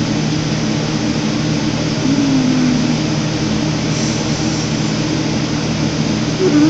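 A steady low mechanical hum with hiss, like a running motor, with a brief low wavering tone about two seconds in.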